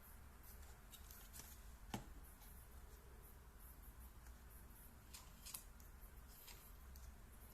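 Near silence with faint small clicks and rustles, like light handling of small objects; one sharper click about two seconds in.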